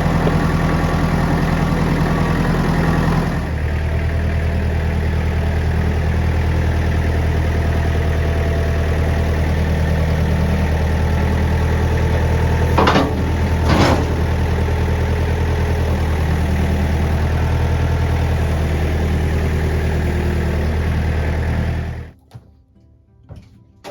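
An engine idling steadily, with two short louder sounds near the middle, then shut off abruptly near the end.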